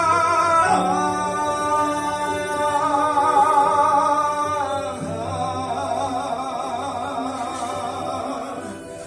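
Singing voice in long held notes with a wavering vibrato, a new phrase starting about a second in and another about five seconds in.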